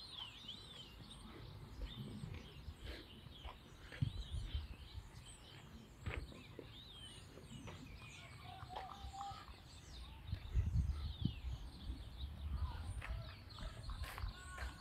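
Small birds chirping and calling, with a short lower call about nine seconds in. Low rumbles on the microphone come and go, strongest about four seconds in and again around ten to eleven seconds.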